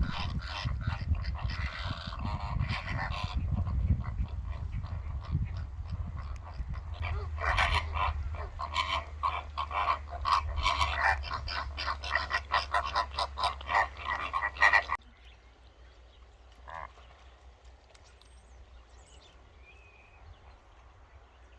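A flock of flamingos calling in a dense goose-like honking chatter over a low rumble of wind on the microphone. About fifteen seconds in it cuts to a much quieter scene with a few faint small-bird chirps.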